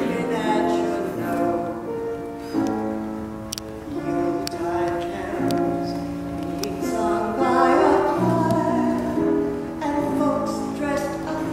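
A woman singing a Christmas carol in slow, held notes, with a few short clicks in the middle.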